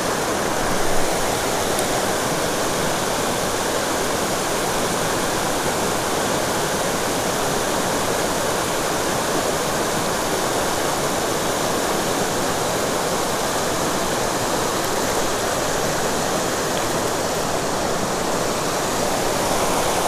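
Water spilling over a low concrete weir on a river: a steady, unbroken rush of white water.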